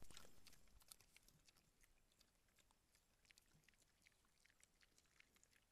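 Faint, irregular soft clicks and scratches of an animal's fur rubbing against a trail camera, loudest right at the start and fading within about a second.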